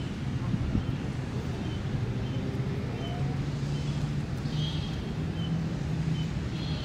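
Steady low motor hum, like traffic or an idling engine, with wind noise on the microphone. Faint short high chirps repeat about once a second.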